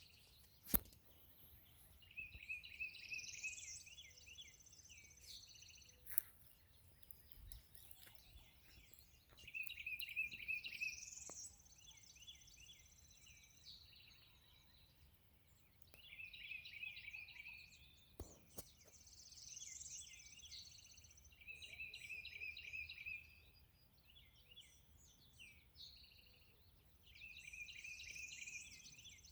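A songbird singing the same short trilled phrase over and over, every few seconds, with a higher rising note in each phrase. A few sharp clicks come in between, one near the start.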